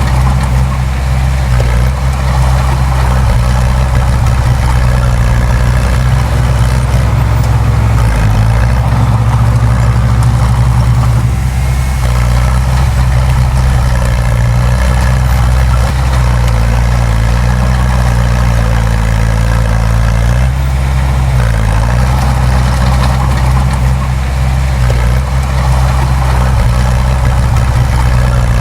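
Bulldozer's diesel engine running steadily while pushing soil, its pitch dipping briefly a few times as the load changes.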